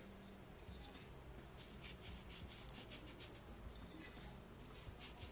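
Dry fish seasoning being sprinkled by hand onto a raw whole fish: a faint, soft scratchy hiss in short repeated strokes as the grains fall and the fingers rub.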